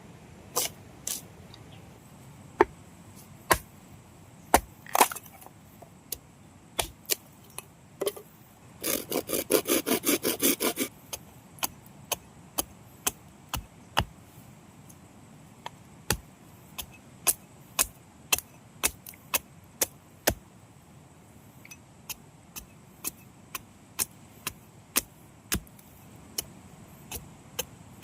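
Blade strikes on wood, single sharp chops at irregular intervals, with a quick run of about a dozen rapid strokes around nine to eleven seconds in.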